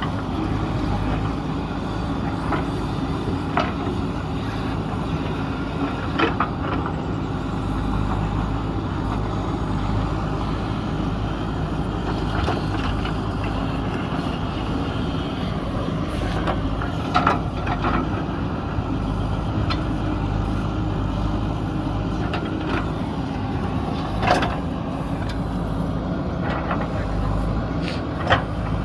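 JCB 3DX backhoe loader's diesel engine running steadily as the machine digs into a hillside, with a few short sharp knocks spaced several seconds apart.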